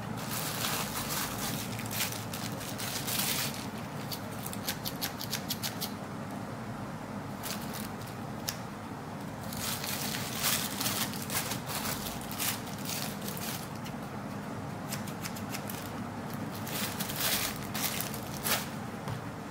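Thin clear plastic wrapping crinkling in repeated bursts as it is handled and opened.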